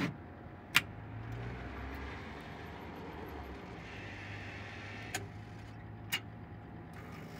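Street espresso vending machine brewing and dispensing coffee: a faint, steady low hum, with three short sharp clicks, one about a second in and two more near five and six seconds in.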